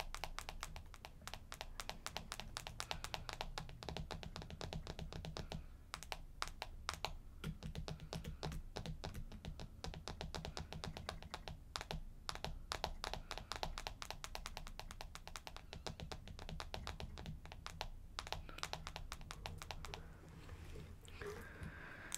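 Fast, light tapping directly on the camera: a dense run of sharp clicks, many a second, that thins out near the end.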